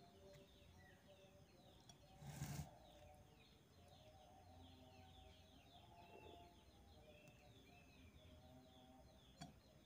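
Faint birds chirping, many short falling chirps in quick succession, with one brief rustling noise about two and a half seconds in.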